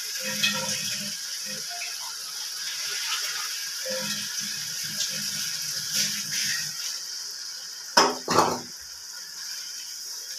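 Masala sizzling in a non-stick wok while a wooden spatula stirs and scrapes it. About eight seconds in come two loud short sounds as a little water from the yogurt bowl goes into the pan.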